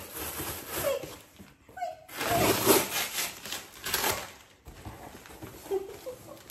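Large cardboard box being pulled open by hand: cardboard flaps and packing tape rustling and scraping, in a few louder stretches.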